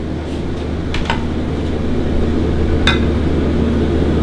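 Steady low hum of commercial kitchen equipment, with light clinks of glassware about a second in and again near three seconds as a glass measuring jug is handled.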